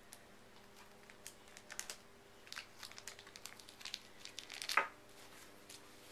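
Thin plastic crinkling as fingers work a tiny zip-top bag open, in scattered crackles that grow busier partway through, with one louder crackle near the end.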